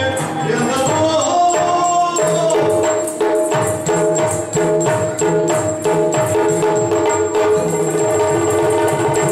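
Yakshagana himmela accompaniment: a sung line ends about two seconds in, then a steady drone holds under fast, even drum strokes on the maddale and chende with the jingle of small cymbals and bells.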